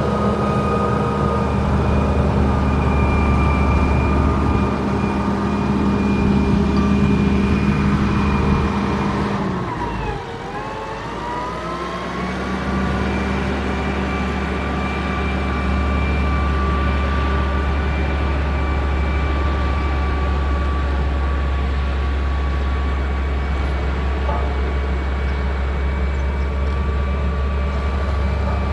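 Motor grader's diesel engine running steadily under load, with a high whine over the engine note. About ten seconds in the engine note dips sharply, then climbs back up over two or three seconds and holds steady again.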